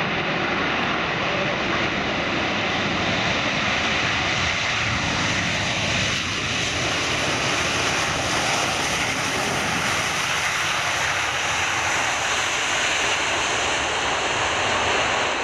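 Large aircraft engines running loud and steady, a dense wash of engine noise that grows brightest about halfway through.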